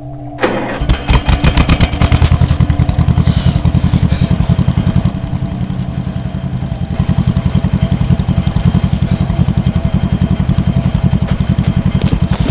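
Tractor engine running with a loud, rapid, even chugging. It comes in suddenly about half a second in.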